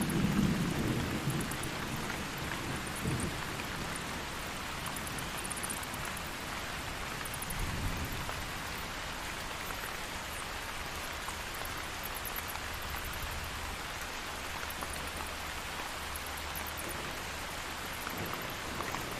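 Steady rain falling through a thunderstorm, with low thunder rumbles: one fading away in the first couple of seconds, a softer one about eight seconds in, and another building at the very end.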